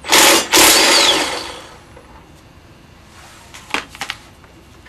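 Impact wrench with a 19mm socket running in two bursts, a short one and then a longer one that fades out, loosening the caliper stay bolt on a motorcycle's rear wheel. A few light metallic clicks follow near the end.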